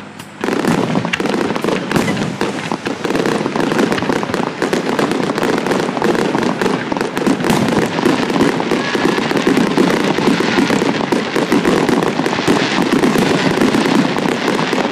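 A dense barrage of aerial firework shells bursting, with a continuous rapid crackle of overlapping bangs that starts suddenly about half a second in.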